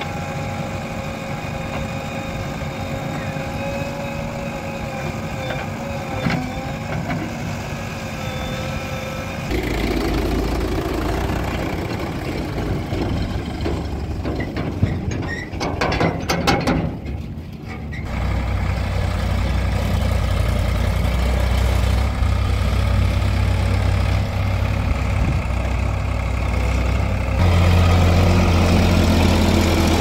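Diesel engines of a JCB 3DX backhoe loader and farm tractors running steadily. About halfway through there is a run of rattling metal knocks. From about two-thirds of the way in, a deeper, louder tractor engine drone takes over, rising again near the end as the tractor pulls a loaded trolley.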